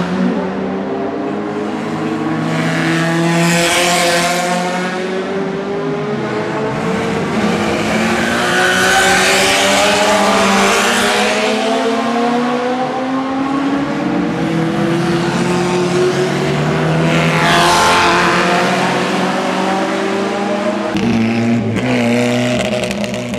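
Historic Formula Junior single-seater racing cars passing one after another at racing speed, their engine notes rising and falling as they go by. The closest, loudest passes come about three seconds, nine to eleven seconds and seventeen seconds in.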